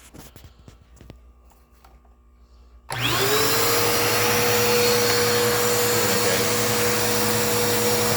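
A few faint clicks, then about three seconds in a Dirt Devil Power Max vacuum cleaner switches on, its motor spinning up within a moment to a steady whine over a loud rush of air.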